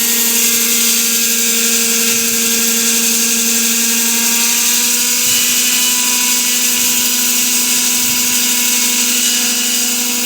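Hilti hydraulic wall saw cutting a concrete floor slab with a diamond blade: a loud, steady whine over a strong high hiss.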